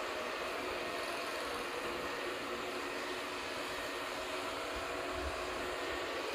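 ECOVACS DEEBOT X9 Pro Omni robot vacuum running, a steady whooshing fan noise with a faint hum.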